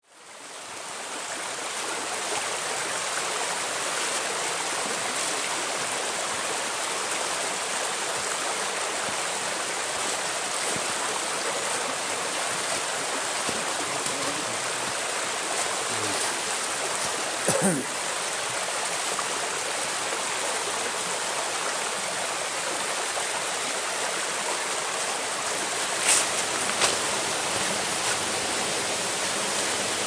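Mountain valley stream flowing steadily, fading in at the start. A brief louder sound comes about halfway through, and two short clicks near the end.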